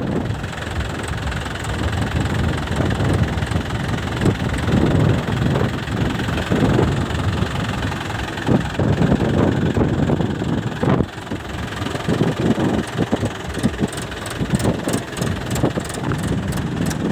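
Mahindra 475 DI tractor's diesel engine running steadily at low speed, its loudness wavering.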